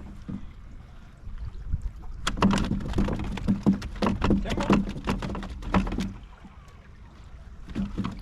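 A rapid series of knocks and thuds against a plastic kayak hull, with a couple more near the end.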